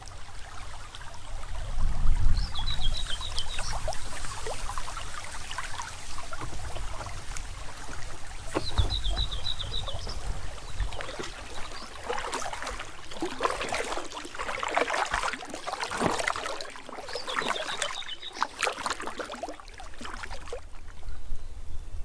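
Water splashing and trickling in irregular bursts, busiest in the second half. A bird repeats a short, high chirping phrase three times, several seconds apart, and there are a couple of low rumbles early on.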